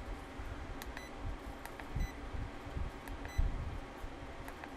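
Short electronic beeps from the FNIRSI DSO153 handheld oscilloscope as its buttons are pressed, a few of them about a second apart, with small button clicks and low handling thumps between.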